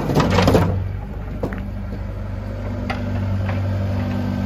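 Soil and rubble pouring from an excavator bucket into a steel truck bed in the first half second or so, then a Volvo mini excavator's diesel engine running steadily, with a few light knocks.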